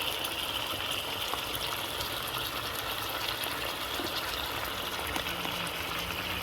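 Pot of curry chicken wings with vegetables cooking on the heat: a steady simmering hiss with fine crackles.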